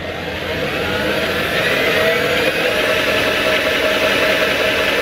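Cordless drill on its low-speed first setting spinning up and running steadily, turning a 3D-printed Archimedes screw turbine and the DC motor it drives as a generator. A motor whine rises in pitch over the first couple of seconds, then holds.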